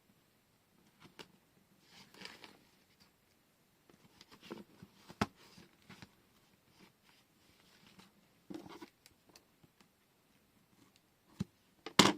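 Scattered small handling noises: light rustles and clicks as washi tape rolls and paper are handled, with a sharp click about five seconds in and a louder knock near the end.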